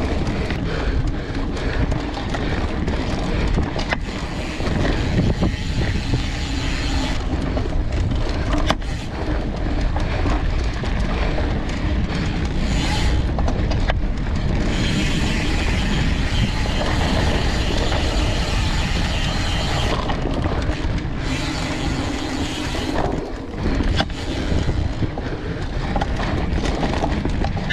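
Mountain bike ridden fast down a dirt singletrack: steady wind rush and rumble on the bike-mounted microphone with tyre noise on dirt, broken by sharp knocks and rattles from the bike over bumps.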